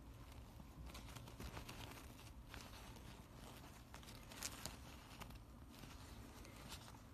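Faint rustling and tearing of a disposable mask's nonwoven fabric layers as it is pulled apart by hand, with scattered small clicks.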